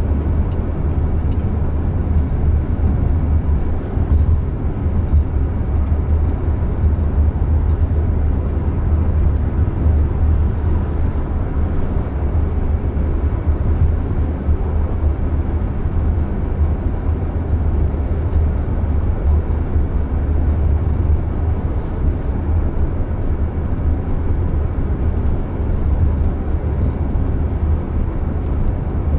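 Steady road and tyre noise heard inside the cabin of a Jaguar I-Pace electric SUV moving at speed, mostly a low rumble.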